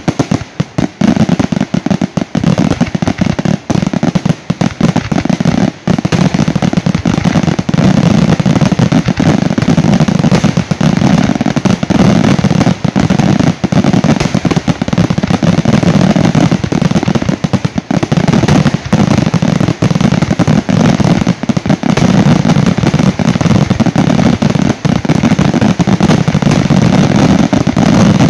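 Aerial fireworks display: many shells bursting in rapid succession, very loud. Separate bangs in the first few seconds run together into an almost continuous barrage of bangs and crackles.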